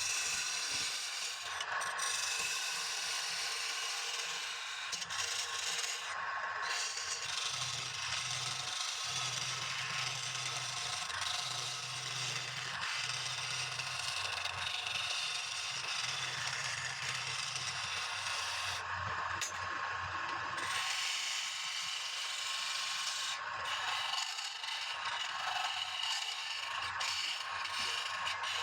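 A turning tool scraping continuously against palm wood spinning on a lathe. The cut lifts off briefly twice, about six seconds in and again near twenty seconds. A low hum runs under the middle stretch.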